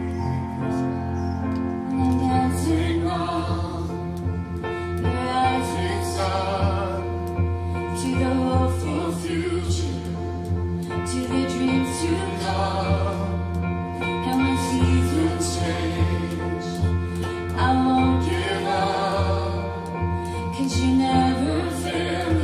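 Live contemporary worship music: sustained keyboard chords over a steady bass line, with voices singing a melody.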